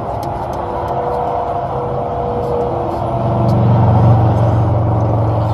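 A steady low motor hum, growing louder about three seconds in.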